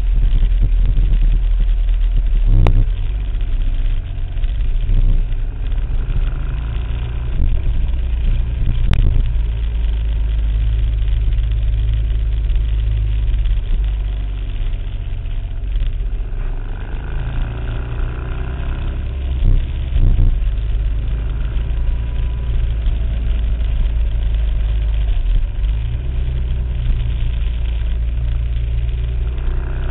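Engine of a slowly ridden vehicle running at low revs, a steady deep rumble, with two sharp knocks about three and nine seconds in.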